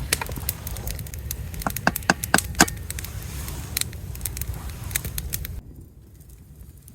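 Many sharp crackles and snaps over a low rumble, with four louder cracks about two seconds in. The sound drops away abruptly near the end.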